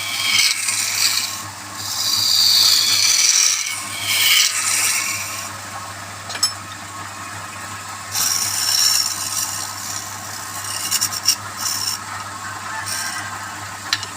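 Wood being worked on a running lathe: a steady motor hum under repeated scraping swells against the spinning wood, heaviest in the first few seconds and again past the middle, with a few sharp clicks toward the end.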